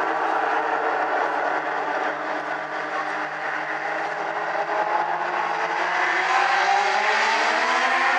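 A pack of Legends race cars with motorcycle engines running together at a steady pace. From about six seconds in, the engines rise in pitch and get louder as the cars speed up.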